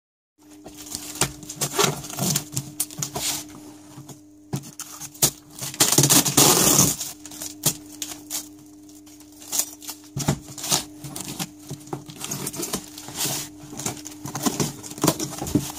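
Printed plastic packing wrap and tape being torn and pulled off a parcel by hand: irregular crinkling and crackling, with a longer ripping tear about six seconds in. A faint steady hum lies underneath.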